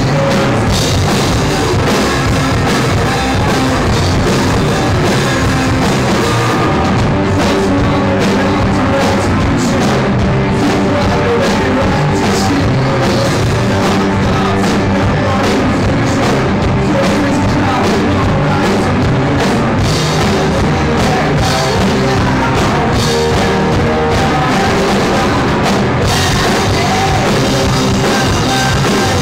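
Live indie rock band playing loud and steady: electric guitars, bass guitar and a Tama drum kit, with sung vocals on top.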